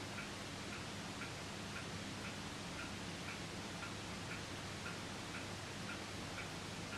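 Soft, regular ticking, about two ticks a second, over a low steady hum.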